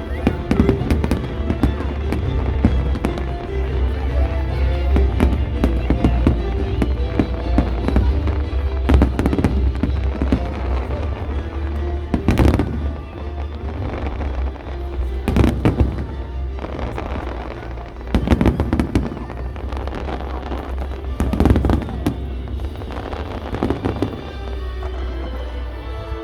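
Fireworks display: a dense run of bangs and crackles, with heavier bursts about every three seconds in the second half. Loud music with a deep bass plays under it.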